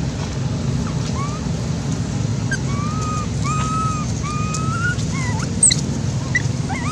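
Baby macaque giving a string of short, thin coo calls, each about half a second and slightly rising, over a steady low rumble.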